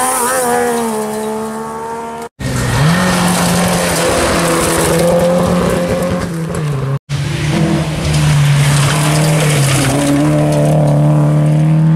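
Classic rally cars passing at speed on a gravel road, one after another, engines held at high revs, with a hiss of gravel and tyres. The sound cuts off abruptly twice, between cars. In the first clip the engine note falls as the car goes by, and in the last it holds and climbs slightly as the next car passes.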